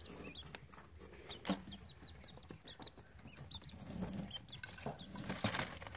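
Three-day-old quail chicks peeping: many short, high-pitched cheeps, several a second, coming in little clusters.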